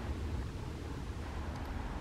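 Steady low rumble with a faint hiss: outdoor background noise, with no siren sounding.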